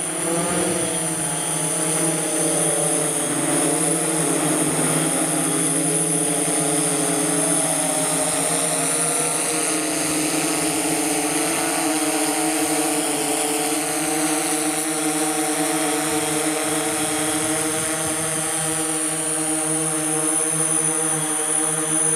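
DJI S1000+ octocopter's eight rotors humming as it hovers, a steady pitched drone of motors and propellers. The pitch wavers in the first few seconds, then holds steady.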